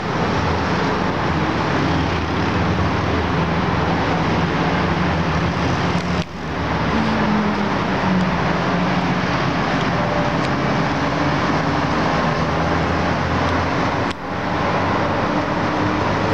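Steady city traffic noise from the streets below, engines and tyres blending into a constant hum, with two brief sudden dips about six and fourteen seconds in.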